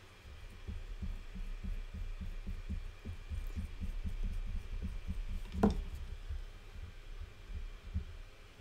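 Soft low thuds, about four a second, as a wooden modeling tool presses and smears slip into a clay seam against the tabletop, with one sharper knock a little past halfway.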